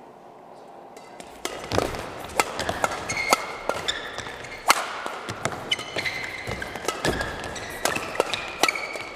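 A badminton rally: sharp cracks of rackets striking the shuttlecock and short squeaks of shoes on the court mat, ringing in a large hall. It starts about a second and a half in, after a quiet pause.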